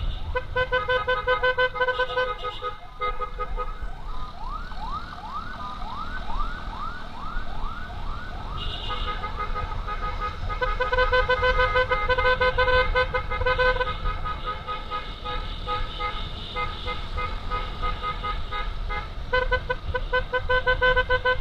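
Electronic emergency siren switching between a rapid pulsing tone and a run of quick rising yelps, about two to three a second, then back to the pulsing tone. Wind rumble and road noise from a moving motorcycle lie underneath.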